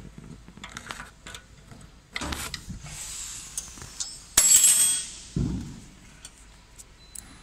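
Mechanical handling noise as the metal marking head of a desktop fiber laser marking machine is fitted onto its column: scattered clicks and knocks, with a loud scraping rub about four and a half seconds in and a dull thump just after.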